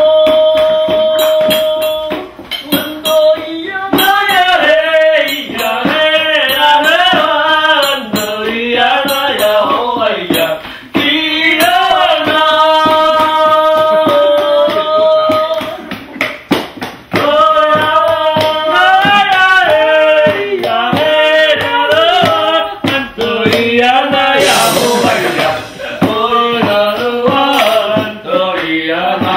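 A man singing a song at full voice, holding long high notes between gliding phrases.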